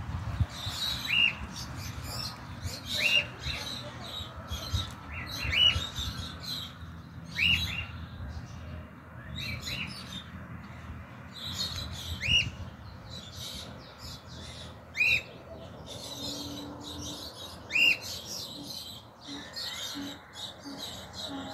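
Cockatiel calling: a short, sharp whistled note that slides up and then drops, repeated every two to three seconds.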